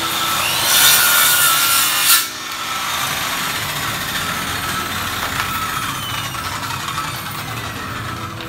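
Handheld electric circular saw cutting through a wooden crate plank: a loud cut of about a second and a half that ends abruptly. The saw then runs on more quietly, its pitch slowly falling.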